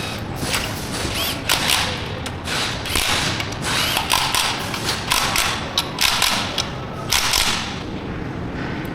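Irregular clanks, knocks and rattles of metal hand tools and parts being handled, in quick uneven bursts with a few brief squeaks.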